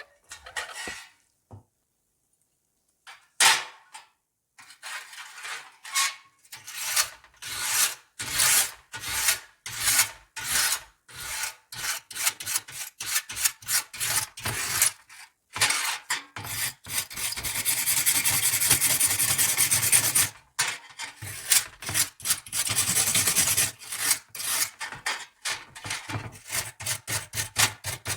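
Rusty steel scissors being scrubbed by hand with an abrasive, in repeated back-and-forth scraping strokes about one or two a second. The strokes begin a few seconds in, blur into a fast continuous scrub around the middle, then break into quick strokes again near the end.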